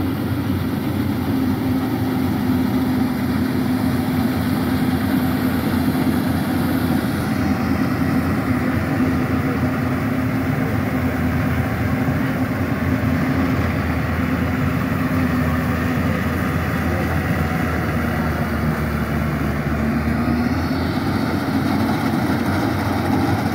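Yanmar YH880 rice combine harvester's diesel engine running steadily while it cuts rice, with a steady hum whose pitch dips briefly and recovers near the end.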